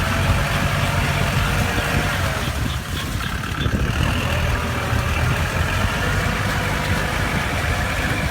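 Kubota L4708 tractor's diesel engine running steadily.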